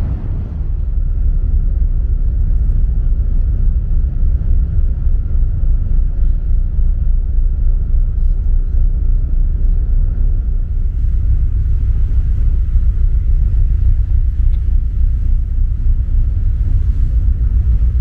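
Steady low rumble of wind buffeting the microphone on the open deck of a car ferry under way, with the ship's engines droning beneath.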